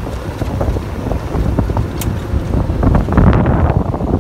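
Wind buffeting the microphone while riding in the open bed of a moving pickup truck on a rough dirt road, with bumps and rattles mixed in; it gets louder about three seconds in.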